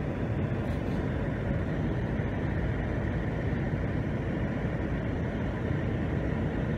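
Steady, even rumble of a vehicle running.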